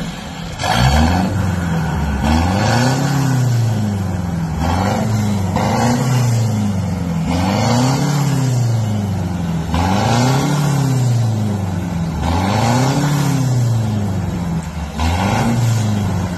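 Ford Ranger 2.2-litre four-cylinder turbodiesel with a downpipe and straight-pipe exhaust, revved again and again while parked. The pitch climbs and drops back about every two seconds.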